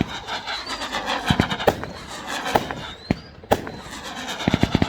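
Fireworks going off: sharp bangs and crackling, with a few short rising whistles and a quick string of pops near the end.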